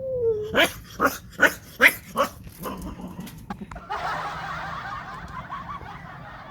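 A cat coughing, a rapid series of about five short hacking coughs, after a brief gliding call at the start. A steadier rough noise follows from about four seconds in.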